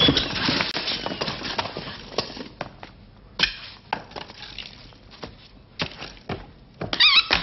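A run of sharp knocks, cracks and clatters, dense at first and then thinning out, followed near the end by a short warbling whistle.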